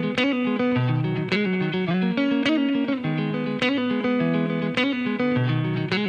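Background music: the instrumental intro of a song, picked guitar notes in a repeating pattern, with a light click on the beat about once a second.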